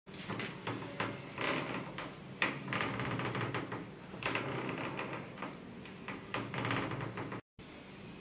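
Interior door swinging open and shut on butterfly hinges, with creaking from the dry hinges and a few knocks of the door and handle. The creaking is the sign of hinges that need grease.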